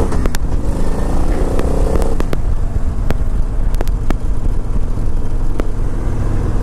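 2015 Victory motorcycle's V-twin engine accelerating hard. The revs rise, dip at a gear change at the start, rise again for about two seconds, then hold steadier, with a few sharp ticks.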